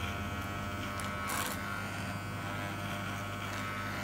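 Wahl Classic Series electric hair clipper running with a steady low hum while cutting hair held up on a comb; a short burst of noise about a second and a half in.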